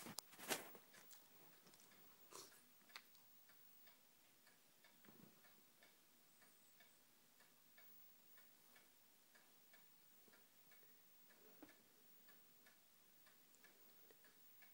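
Near-silent room with faint, regular ticking about twice a second. A sharp click comes about half a second in, and a few softer knocks follow later.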